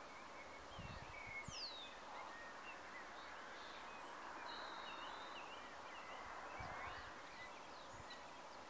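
Faint outdoor ambience: many small birds chirping and twittering, with one clear whistle falling in pitch about a second and a half in, over a steady low hiss of background noise and a few faint low rumbles.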